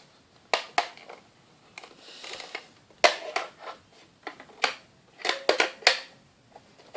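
A dozen or so sharp clicks and knocks at irregular intervals as a broken alarm clock is handled and its parts are pushed back into place.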